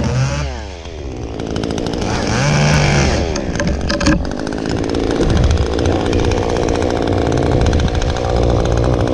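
Stihl chainsaw revving, its pitch dropping and climbing again, then held at a steady high speed from about four seconds in.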